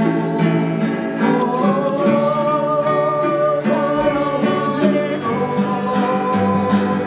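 Guitar and harp playing a slow hymn tune: plucked notes under a held, slightly wavering melody line.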